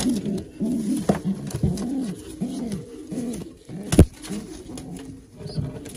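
Racing pigeons cooing, many low rolling coos overlapping. A few sharp knocks cut through, the loudest about four seconds in.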